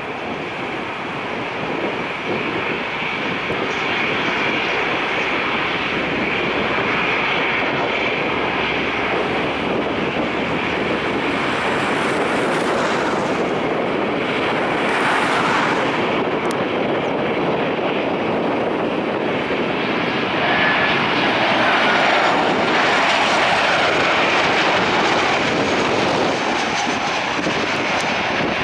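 Boeing 737-800 airliner's CFM56-7B turbofan engines on final approach: steady jet engine noise with a high whine, slowly growing louder as the plane descends toward the runway.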